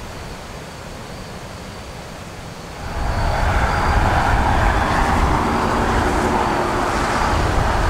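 Wind rushing through the woods, a steady noise that jumps much louder about three seconds in to a rushing sound with a low rumble, like wind buffeting the microphone. Faint short high tones repeat underneath.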